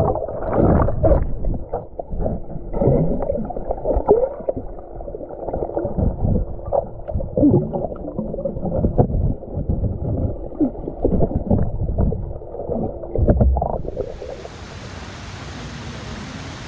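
Underwater sound from a camera held below a swimming pool's surface: muffled, dull gurgling and bubbling as swimmers move and breathe out bubbles, in irregular surges. About fourteen seconds in it changes abruptly to a steady hiss of waterfalls pouring into the pool.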